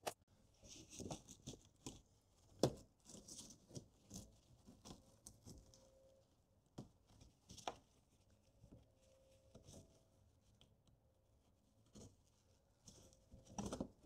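Faint scattered rustles and light knocks from gloved hands peeling back a soft fabric wheel-well liner and handling its plastic trim.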